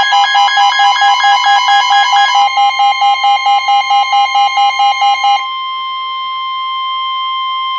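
Emergency Alert System attention signal announcing a severe thunderstorm warning: a loud pulsing alarm of several tones, about four beeps a second, that changes about five seconds in to a single steady alert tone.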